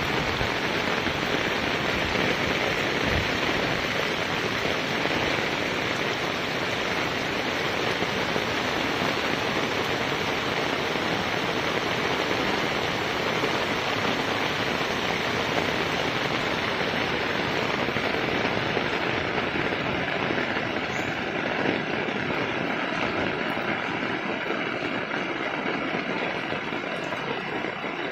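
Fast-flowing floodwater of a swollen river, a steady rushing noise with no let-up.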